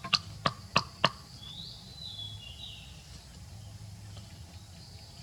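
Four sharp knocks in quick succession, about a third of a second apart, then a high chirping call lasting about a second and a half, over a low steady background hum.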